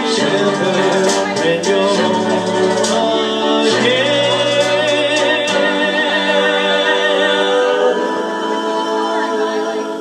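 Karaoke backing track playing an instrumental passage: sustained, choir-like chords, with light percussion ticks in the first few seconds, and the music getting quieter near the end.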